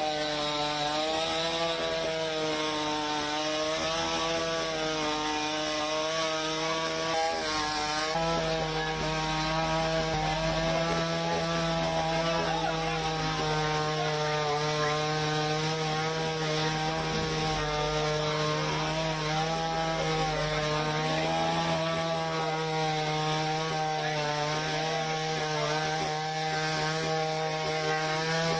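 Petrol chainsaw running steadily as it cuts a fallen tree trunk, its pitch wavering slightly under load, with a small step up in engine speed about eight seconds in.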